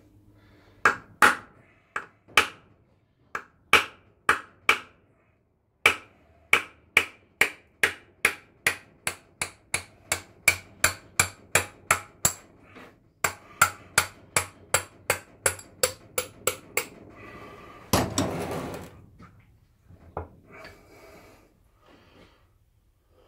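Hammer blows on a Holden V8 pushrod used as a drift, driving the layshaft out of a Holden M20/M21 four-speed gearbox case: dozens of sharp metallic strikes, about two a second. Near the end comes a short, louder scraping clatter.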